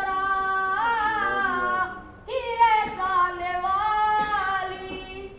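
A boy singing a ragni folk song unaccompanied, in two long phrases of held, bending notes with a short break about two seconds in; the second phrase fades near the end.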